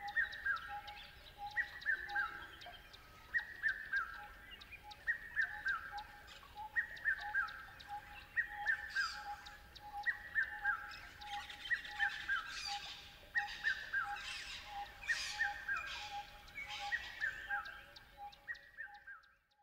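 Birds calling: a short falling phrase repeats about every second and a half to two seconds over a fast, steady run of pips. Scratchy bursts join in during the second half, and the sound fades out near the end.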